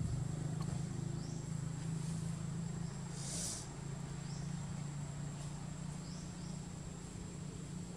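Forest ambience: a steady high insect whine over a steady low hum, with a brief hiss about three seconds in and a few faint chirps.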